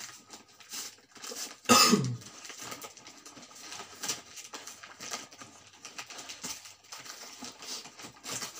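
Wrapping paper crinkling and tearing as a gift is unwrapped by hand, with a single loud cough about two seconds in.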